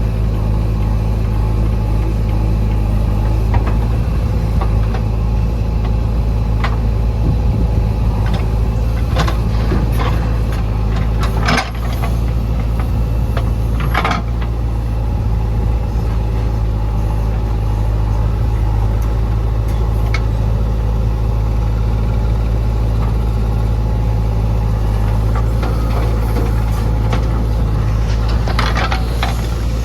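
Diesel engine of a JCB 3DX backhoe loader running steadily while it digs and loads mud, with scattered sharp knocks and clanks, the loudest about 11 and 14 seconds in, and a cluster near the end.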